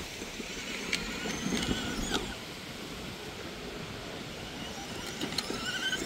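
Steady background noise with a few faint knocks and brief faint squeaks.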